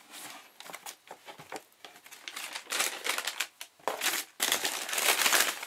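Cardboard shoebox being opened and the tissue paper inside crinkling in irregular bursts as it is pulled back, loudest toward the end.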